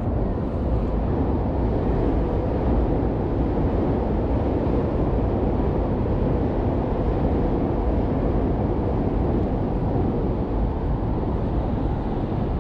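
Steady rush of wind on a chest-mounted action camera and road traffic noise, heard from a bicycle riding along a busy road.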